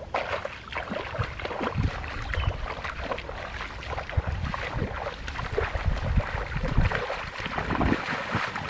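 Several people wading barefoot through shallow stream water, their feet splashing and sloshing in an irregular run of strokes.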